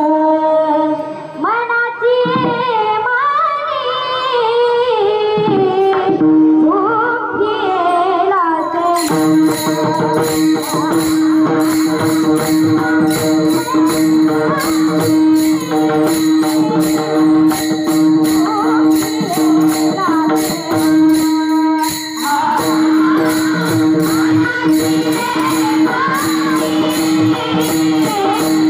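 Devotional Bhairavi sung by a solo voice in slow, gliding phrases over a steady drone. About nine seconds in, a group of small brass hand cymbals (taal) comes in with a steady beat, and the singing carries on over them.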